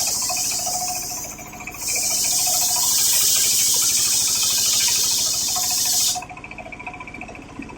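Homemade circular saw cutting coconut-palm wood: a loud high hiss of the blade in the cut, with a short dip about a second and a half in, stopping suddenly about six seconds in. Under it the saw's drive runs with a steady low pulse.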